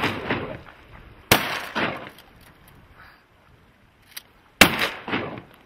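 Shotgun fired twice, about three seconds apart, each loud blast followed half a second later by a quieter report.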